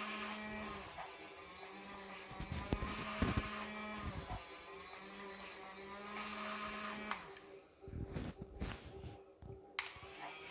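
Small electric motor of a battery-powered toy excavator whirring, starting and stopping several times, with sharp plastic knocks about three seconds in and a clatter of knocks near the end.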